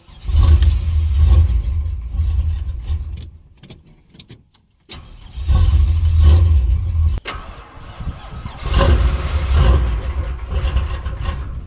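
Carbureted 468 big-block V8 (a 454 bored .060 over, 750 Holley four-barrel) cold-starting without a choke: it fires and runs in three loud surges, falling away almost to nothing about four seconds in before picking up again. It is struggling to stay running cold.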